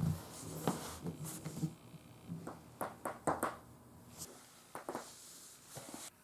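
Joints being cracked: a run of sharp pops and clicks, about ten over the few seconds, some in quick pairs. A low hum underneath stops about four seconds in.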